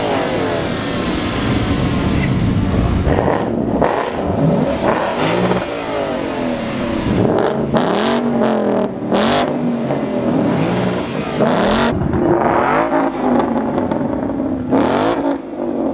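Cars accelerating past one after another, engines revving with their pitch rising and falling.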